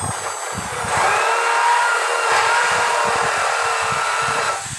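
Corded electric drill boring a hole through an aluminium door frame, a steady high whine with the grinding of the bit in the metal. It grows louder about a second in as the bit bites and drops off near the end.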